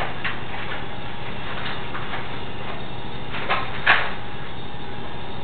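Steady background hiss with a few short rustles and knocks of things being handled, the loudest about four seconds in.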